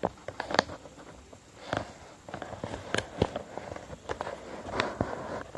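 A sheet of copy paper being folded and creased by hand against a tabletop: irregular rustling and crackling, with short taps and scrapes as fingers press the folds flat.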